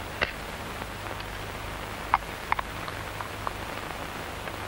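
A steady hiss with a low hum under it, and a handful of light, sharp clicks and taps of small objects being handled, the loudest a little over two seconds in.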